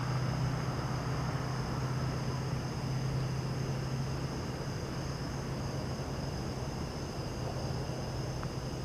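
Distant steady drone of a Cessna 172S Skyhawk SP's propeller and four-cylinder Lycoming engine, slowly fading as the plane flies away. Crickets chirr steadily behind it.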